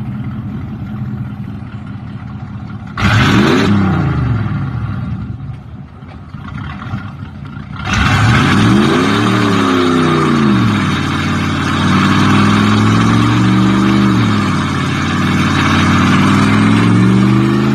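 A car engine idling, then revved sharply about three seconds in, its pitch climbing and falling back. It is revved again about eight seconds in and then held at a steady fast run, with a slight rise near the end.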